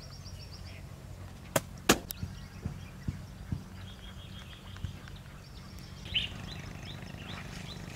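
Birds chirping in quick trills over a low steady hum, with two sharp knocks a couple of seconds in and several lighter taps after them.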